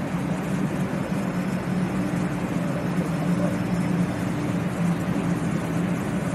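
A 500 series Shinkansen train standing at the platform, humming steadily with a few held low tones over an even rushing noise.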